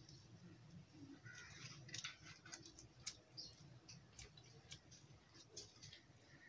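Faint chewing of a fried bread pakoda, with small mouth clicks scattered throughout.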